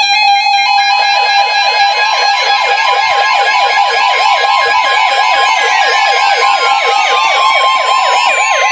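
Weather radios sounding their alarm for a tornado warning: a steady NOAA warning alarm tone under a fast siren-like warble, about five warbles a second, with a tone gliding downward in the second half.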